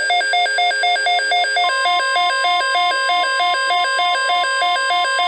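Weather radio alert alarm: a loud electronic two-tone warble switching rapidly back and forth, set off by an incoming NOAA Weather Radio severe thunderstorm watch. About 1.7 s in, the broadcast's steady warning alarm tone joins it.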